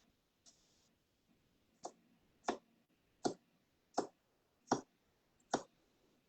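Knife chopping on a cutting board: six sharp knocks at an even pace, about three quarters of a second apart, starting about two seconds in.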